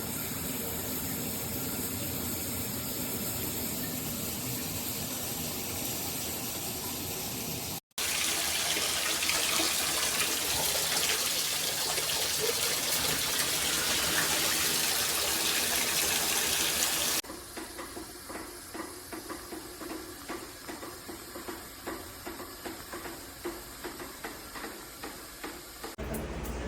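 Shower head spraying water in several cut-together takes. First a steady hiss, then a louder, brighter spray from about 8 to 17 seconds in, then quieter running water with frequent small splashes.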